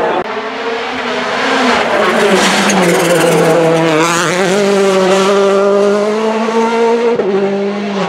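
Rally car engine revving hard at high speed, its pitch dipping and climbing and then holding a high steady note for a few seconds before dropping near the end.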